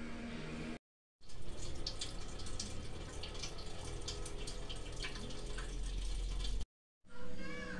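Corned beef and sweet potato in a pan of liquid bubbling at a simmer after water was added: many small pops and crackles over a steady wet hiss. The sound cuts out briefly twice, about a second in and again near the end.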